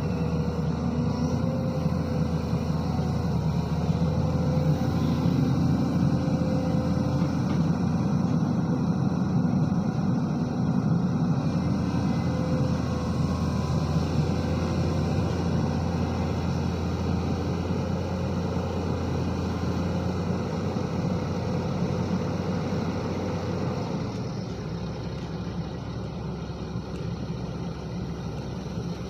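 Diesel engine of a SANY SY215C excavator running steadily, easing slightly near the end.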